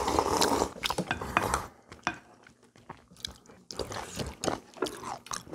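People eating kalguksu noodle soup: a loud, long slurp lasting about a second and a half, then quieter chewing and scattered clicks of chopsticks and spoons on bowls.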